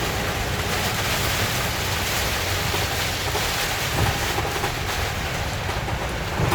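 Heavy rain drumming steadily on a car's roof and windshield, heard from inside the cabin over the low rumble of the car driving, with a couple of dull knocks.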